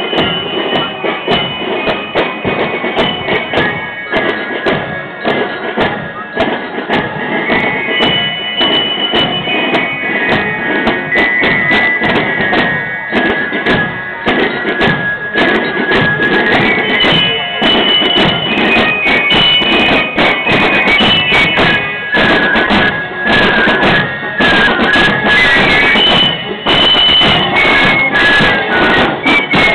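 A fife-and-drum marching band (Spielmannszug) playing a march: a shrill fife melody over steady snare and bass drum beats. It grows louder over the first half as the band draws close.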